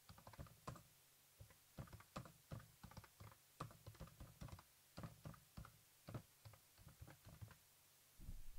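Faint, irregular keystrokes of typing on a computer keyboard, stopping shortly before the end.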